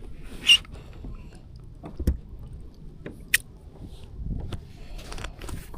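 Small knocks and clicks of fishing gear and paddle against a kayak, with a low thud about two seconds in and a few short high squeaks.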